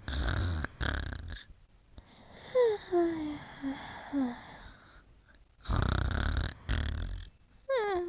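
A sleeper snoring: two loud, rasping snores, each in two parts, near the start and again about six seconds in. Between and after them come runs of short, high whimpers that fall in pitch, as in a dream.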